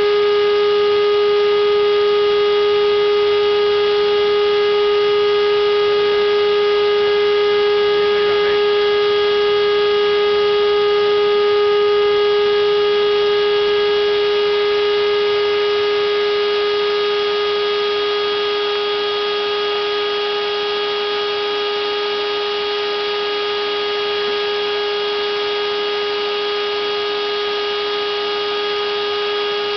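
Home-made CNC router running with a steady high-pitched whine that holds one pitch throughout and eases off slightly in volume about halfway through.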